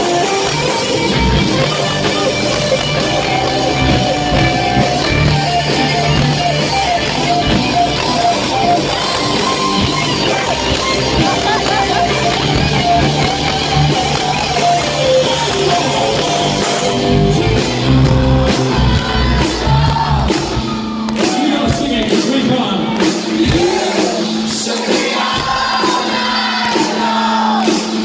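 Live rock band playing loudly through a large PA, with electric guitars, drums and singing. About 17 seconds in, the dense guitar sound thins out and the singing stands out more.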